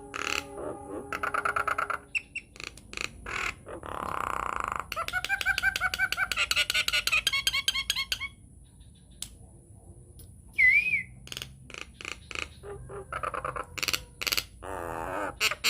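Nias hill myna singing a fast, varied medley: sharp clicks, a buzzy squawk, a quick run of rising whistled notes, a lone whistle and a rapid warble near the end.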